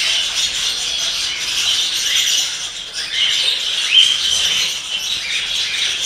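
Many caged small parrots, budgerigars among them, chirping and chattering together in a continuous high-pitched din, with a short rising whistle about four seconds in.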